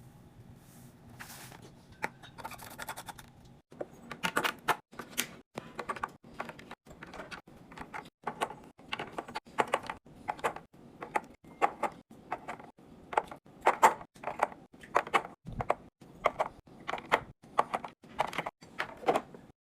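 Containers and packaging being handled and set down while restocking a fridge: short knocks, clicks and rustles in quick clusters, with brief silent breaks between them. Fainter rustling at first, then denser and louder knocking from about four seconds in.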